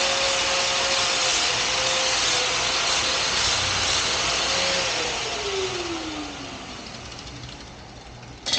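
Electric grinder running on metal, then switched off about five seconds in and winding down, its whine falling in pitch as it slows. A sharp click near the end.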